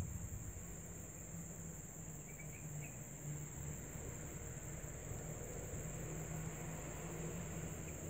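Steady high-pitched drone of insects, holding one even pitch throughout, with a few short faint chirps between two and three seconds in.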